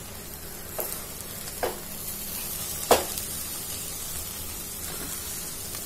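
Silicone spatula stirring and scraping cooked moong dal in a nonstick pot, over a soft steady sizzle from the pot, whose water has cooked dry. A few short knocks of the spatula against the pot, the loudest about three seconds in.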